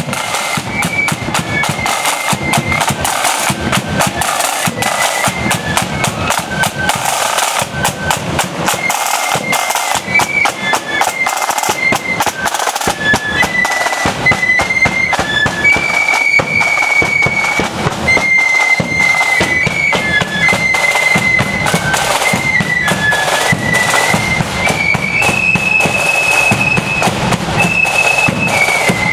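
Marching flute band playing a tune on the march: a line of flutes carries a high melody over snare drums beating rapid rolls and a bass drum.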